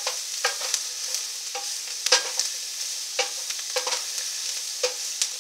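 Sliced mushrooms, onions and bell pepper sizzling as they sauté in a square pan, with irregular knocks and scrapes of a wooden spoon stirring them, the sharpest knock about two seconds in.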